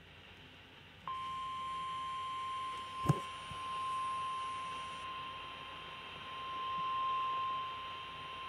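NOAA Weather Radio 1050 Hz warning alarm tone: a single steady high tone that starts about a second in and holds, over faint radio hiss, with one sharp click about three seconds in. The tone signals that a warning broadcast, here a severe thunderstorm warning, is about to follow.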